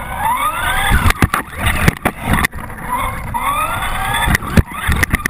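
Traxxas Slash RC truck's motor whining and rising in pitch as it accelerates, twice, over a low rush of tyres spraying through water on wet pavement. Several sharp knocks of the chassis bumping are mixed in.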